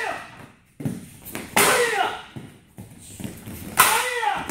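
Boards cracking under martial-arts kicks, three sharp breaks about 0.8, 1.6 and 4 seconds in, each with a short shout from the kicker.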